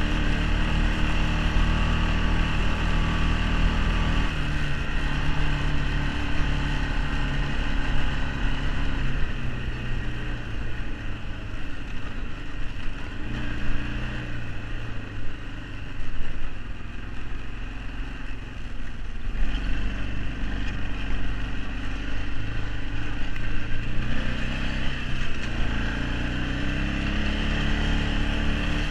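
Arctic Cat 454 ATV's single-cylinder four-stroke engine running while riding over snow-covered ice. The engine note rises and falls as the throttle is worked, easing off a few seconds in and climbing again several times later on.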